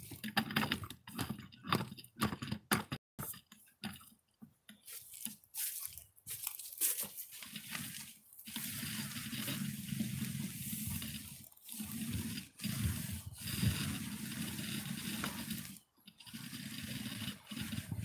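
Paint roller on an extension pole working white waterproofing coating: choppy wet squishing and dabbing as it is loaded from the bucket, then from about halfway steady wet rubbing as it is rolled in long strokes across plywood, with brief breaks at each change of stroke.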